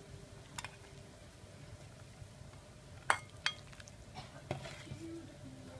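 A ladle clinking against a steel pot and a ceramic plate as boiled chicken pieces are scooped from the broth: about five short clinks, the loudest two close together about three seconds in.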